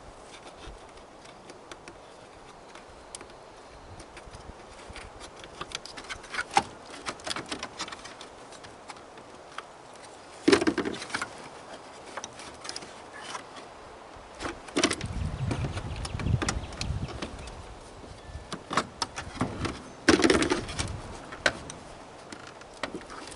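Scattered small clicks and rattles of parts being handled while a washing machine is taken apart by hand, with louder knocks about halfway through, again around two-thirds in, and near the end.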